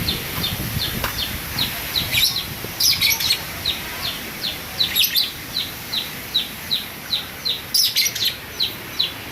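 A bird repeating one short, falling chirp over and over, about two or three a second, with three louder bursts of higher, scratchy chirping about two, five and eight seconds in.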